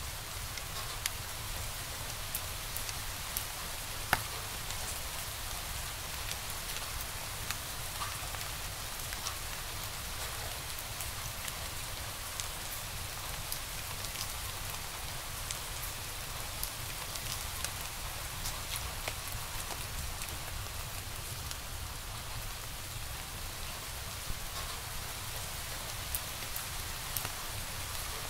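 Wood fire crackling in a fireplace: a steady hiss with scattered small pops, and one sharper pop about four seconds in.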